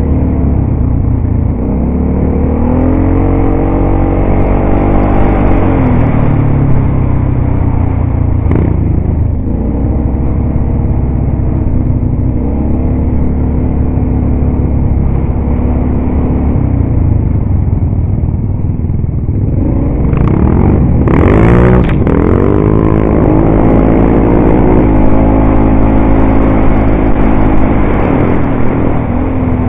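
ATV engine running while riding, its pitch rising and falling with the throttle. A short, loud rush of noise cuts in about two-thirds of the way through.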